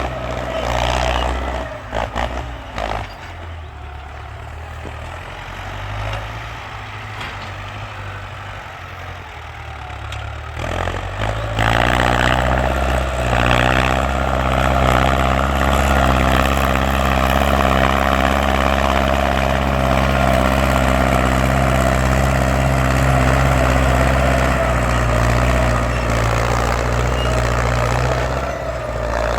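Ford farm tractor engine running, lower and quieter at first, then revving up about eleven seconds in and holding at high revs, loud, before easing slightly near the end.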